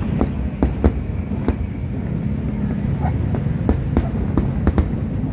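Aerial fireworks bursting: a string of sharp bangs, irregularly spaced, over a steady low rumble.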